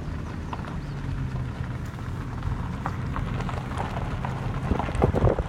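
Car driving slowly: a low engine hum for the first second or so, under steady rolling noise, then rapid crackling from the tyres that gets louder near the end.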